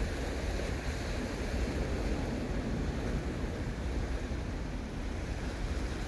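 Steady wind noise on the microphone over the wash of small sea waves against shore rocks.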